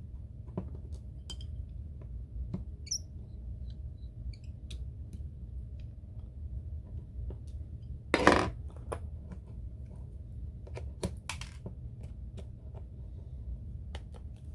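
Small, scattered clicks and taps of repair tools handling an iPhone 6s, with one louder short scrape about eight seconds in and a quick run of clicks a few seconds later, over a steady low hum.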